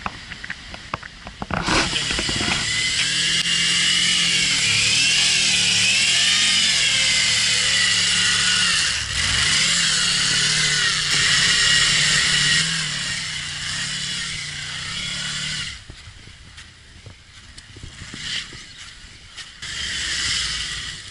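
Honda VFR800 VTEC's V4 engine held at high revs, the pitch wavering up and down, as the rear tyre spins in loose sand. After about fourteen seconds it drops away suddenly to a quieter engine, with a short swell near the end as the bike passes close by.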